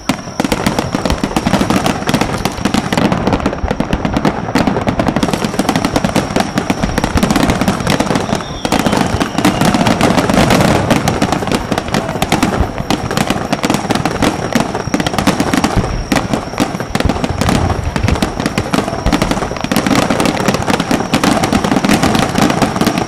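Aerial firework shells bursting in a rapid, continuous barrage, many bangs and crackles overlapping with no pause between them.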